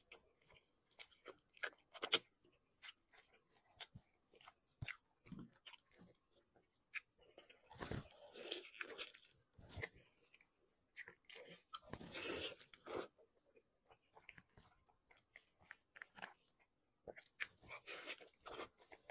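Close-up chewing and wet lip-smacking as a person eats braised beef trotter and its gelatinous tendons, a string of short sticky clicks with two louder, longer stretches of biting and chewing about 8 and 12 seconds in.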